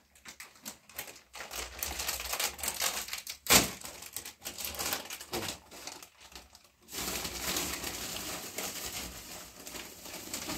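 Crinkling and rustling of plastic snack bags being handled, in irregular crackles, with one sharper crackle about three and a half seconds in and denser rustling over the last few seconds.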